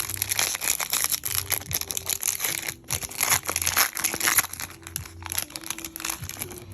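Foil wrapper of a Pokémon Vivid Voltage booster pack crinkling and tearing as it is opened by hand, a busy irregular crackle throughout.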